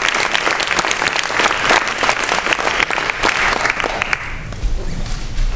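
Audience applauding, a dense patter of many hands clapping that dies away about four seconds in. A low rumble follows near the end.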